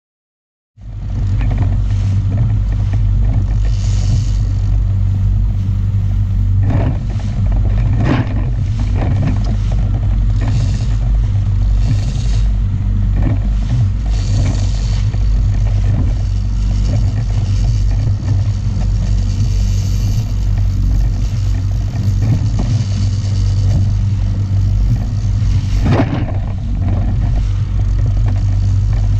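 Small outboard motor running steadily at speed on an inflatable boat, with water rushing in the wake. It starts about a second in, and a few sudden thumps come through, twice close together early on and once near the end.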